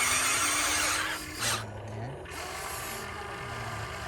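Small electric motors and plastic gearboxes of a radio-controlled construction machine grinding and whirring, loud for about the first second, then quieter.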